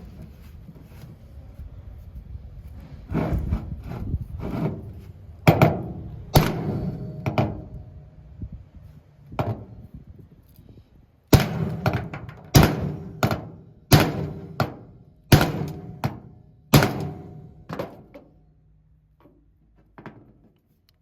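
Hammer blows on a hammer-type cable crimper, driving a lug onto a heavy battery/welding cable. About fifteen sharp metal strikes, each with a short ring: a slower group, a pause, then a quicker run of blows before they stop.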